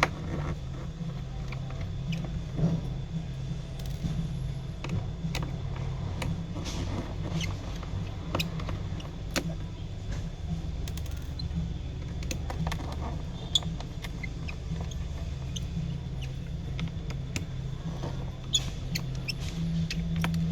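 Scattered small clicks and ticks of a precision screwdriver and tiny screws being taken out of a smartphone's middle frame, over a steady low hum.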